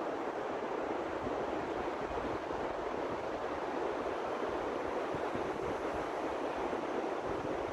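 Steady rush of beach surf and wind, an even noise with no breaks, with some irregular low wind buffeting on the microphone.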